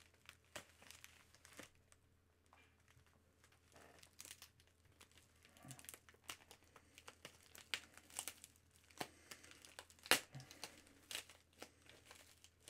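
Faint crinkling and tearing of packaging as a parcel is opened by hand, in irregular short crackles with a sharper snap about ten seconds in.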